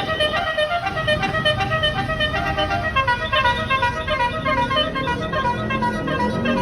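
Bus basuri (telolet) multi-tone air horn playing a melody as a quick run of short notes stepping up and down in pitch, over a low rumble.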